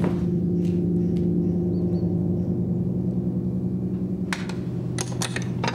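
A low, sustained droning chord from the film score that swells in and holds steady, gong-like. A few sharp clicks and knocks come near the end.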